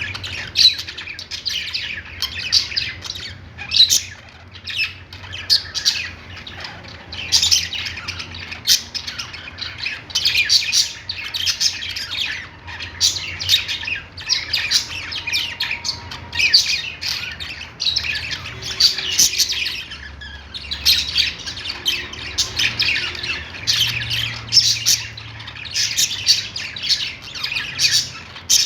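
A flock of pet budgerigars chattering and chirping continuously, with many overlapping sharp chirps and squawks.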